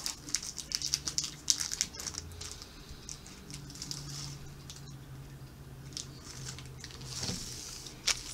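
Plastic snack wrapper crinkling and tearing as a sesame bar is unwrapped by hand: irregular sharp crackles, busiest in the first two seconds, then sparser, with a last flurry near the end.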